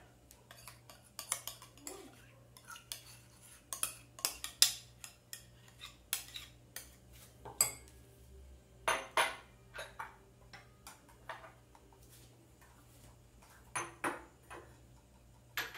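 Metal spoon scraping and tapping against glass bowls as cream is spooned out, with scattered sharp clinks and knocks of glassware set down on a stone countertop.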